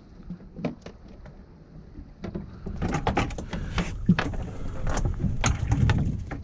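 Knocking, clattering and rustling from handling on a small fishing boat, a close run of sharp knocks starting about two seconds in over a low rumble.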